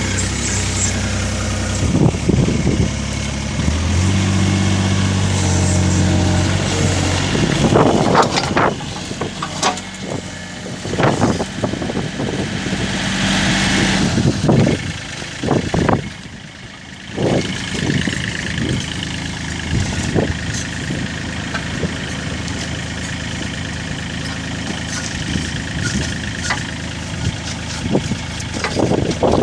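A 3.5-tonne Wacker Neuson mini excavator's engine running, louder from about four to seven seconds in as the machine lifts itself. A string of sharp knocks and clanks follows through the middle as the track is worked on, then the engine runs on steadily.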